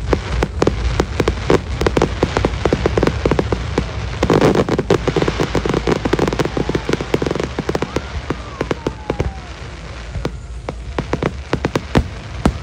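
Aerial fireworks going off in rapid succession, a constant stream of sharp bangs. About four seconds in, a dense crackling stretch lasts some three seconds, and a whistle falling in pitch follows.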